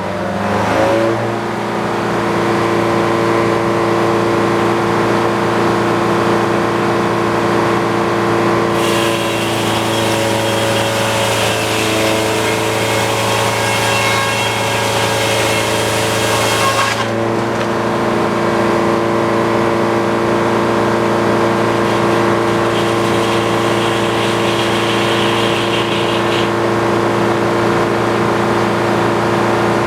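Antique circular sawmill running steadily under engine power. From about nine seconds in to about seventeen seconds the saw blade cuts through a log, adding a loud hiss as the engine note sags a little under the load, then the cut ends abruptly and the mill runs free again.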